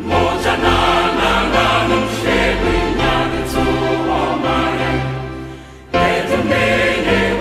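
Background music with a choir singing; it fades down and then starts again suddenly about six seconds in.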